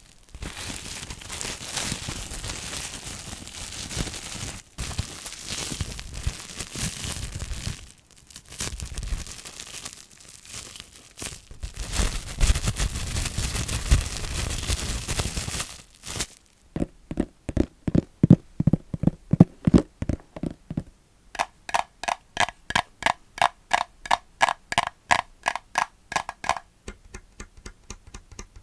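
ASMR plastic sounds: dense crinkling and crackling of plastic for roughly the first half, then a run of quick, even taps. Each tap rings with a short tone, low at first and noticeably higher from about two-thirds of the way in, fading toward the end.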